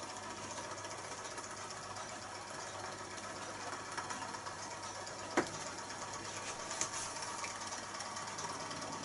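Small vertical-axis model Stirling engine running steadily, its horizontal flywheel spinning, with a fast, even mechanical clatter. A sharp click stands out about five seconds in, and a lighter one follows a second later.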